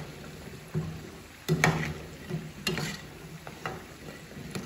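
Briouates sizzling in hot oil in a small frying pan, while a metal skimmer scrapes and knocks against the pan as they are turned and lifted out. There are a few sharp clinks, the loudest about a second and a half in.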